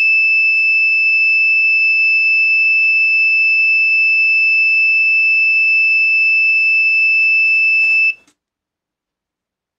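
Rain alarm's piezo buzzer sounding one steady high-pitched tone, triggered by water on the rain-sensor plate. It cuts off about eight seconds in as the plate is wiped dry with a cloth, with a short rub of the cloth just before.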